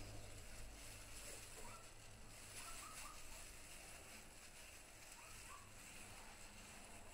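Near silence: faint outdoor background hiss, with a few faint short chirps about two, three and five seconds in.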